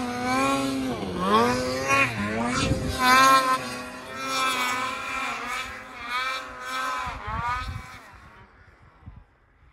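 Snowmobile engine revving up and down again and again as the sled carves through powder, then fading away over the last second or two.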